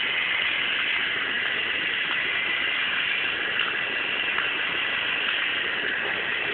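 Small motor and gearbox of a walking Santa toy running with a steady whir as its legs step, with a few faint ticks. The toy's sound chip is broken, so it plays no music.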